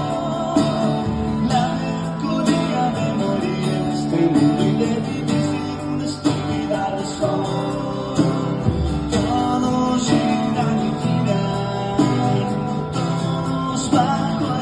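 Rock band playing live: guitars and singing over a steady drum beat.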